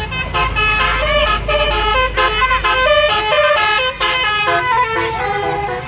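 Tour bus's 'telolet basuri' multi-tone horn playing a quick melody, its notes changing in steps, with a low rumble from the bus under the first half.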